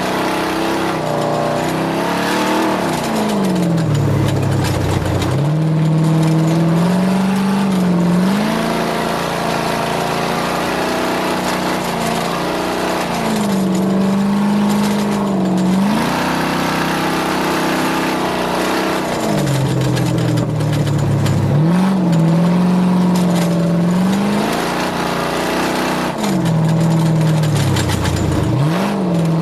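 A racing engine held at high revs, its pitch dropping sharply several times as it slows and then climbing back as it accelerates again.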